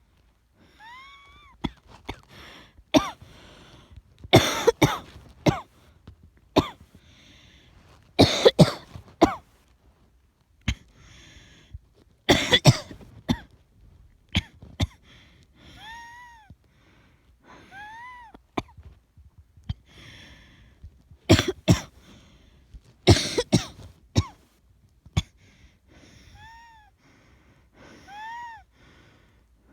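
A person coughing in repeated fits of sharp, harsh coughs during an asthma attack. In the pauses between fits come short, high-pitched wheezing breaths that rise and then fall in pitch.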